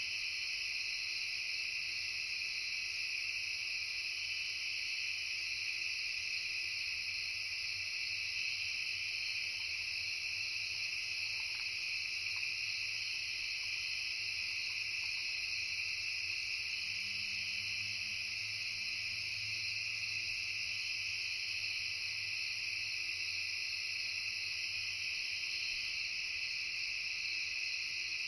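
Late-summer insect chorus of crickets and similar insects, a steady high chirring in several pitches layered together. A faint low rumble comes in past the middle.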